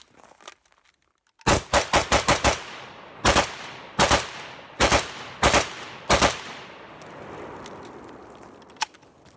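Micro Draco AK pistol in 7.62x39 firing semi-automatically. A fast string of about six shots comes about a second and a half in, then five more shots about two-thirds of a second apart, each followed by a rolling echo.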